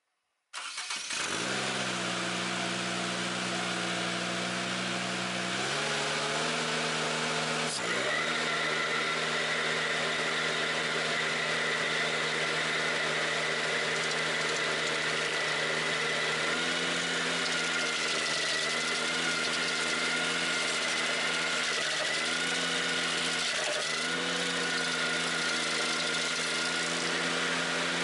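Ventrac 4520Z tractor's engine running steadily and stepping up in speed about six seconds in. From about eight seconds a steady high whine from the engaged stump grinder attachment joins it, and the engine pitch sags briefly a few times as the grinder is worked.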